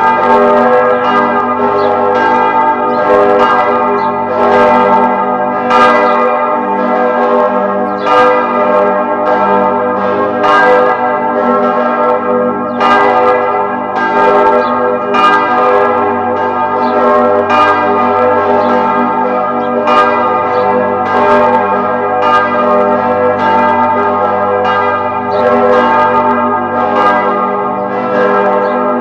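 Several church bells ringing together in a continuous peal. A fresh strike comes about once or twice a second, and the tones overlap and ring on between strikes.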